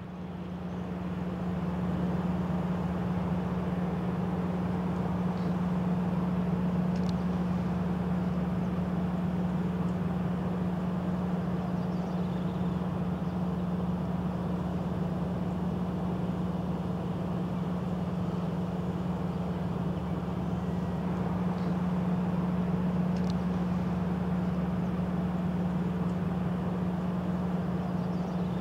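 A steady, low mechanical hum with one constant low tone, like a running engine or motor, and a few faint, short high-pitched chirps.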